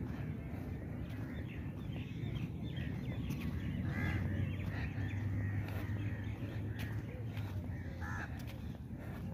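Crows cawing, with two clear single caws about four and eight seconds in, over a steady low rumble.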